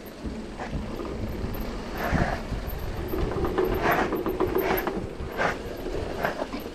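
Mountain bike rattling and clattering down a rough trail, with irregular knocks and metallic rattles from the bike as it takes the bumps.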